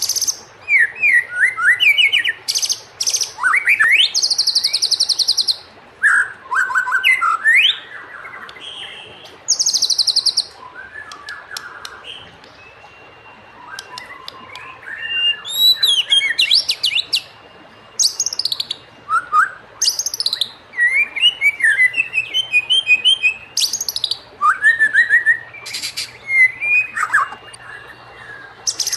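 White-rumped shama (murai batu) singing a varied song: sliding whistled phrases mixed with rapid, high rattling trills, in bursts with short pauses, quieter for a couple of seconds about halfway through.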